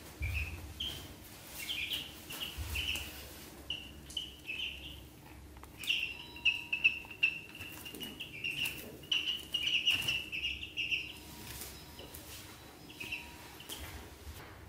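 Ducklings peeping: many short, high chirps in quick runs, busiest and loudest from about six to eleven seconds in.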